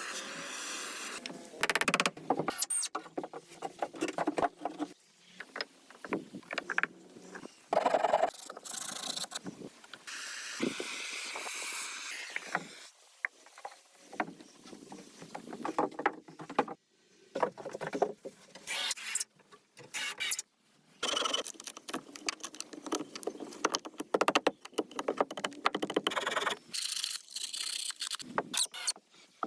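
Irregular hands-on building work: short sharp knocks and clicks mixed with scraping and rustling, with a couple of longer steady scraping passes.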